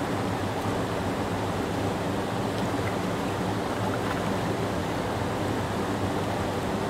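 Creek water rushing over a rock ledge in small whitewater rapids: a steady, even rush of water, fullest in the low and middle range.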